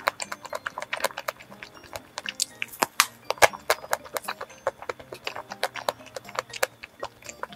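Close-up mouth sounds of chewing soft, moist sponge cake with raspberry cream: wet smacks and clicks, several a second, in an irregular run.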